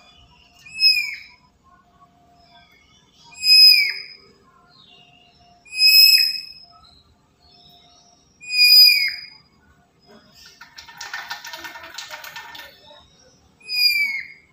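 Black-capped lory calling: five loud, shrill whistled calls, each ending in a falling note, spaced a few seconds apart. About two thirds of the way through there is a two-second scratchy rasp.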